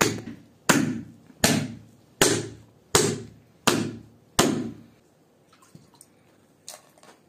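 Wooden mallet pounding raw boneless mutton on a flat stone, beating it into paste for rista. There are six heavy thuds at a steady pace of about one every three-quarters of a second, stopping about five seconds in, then a faint tap or two near the end.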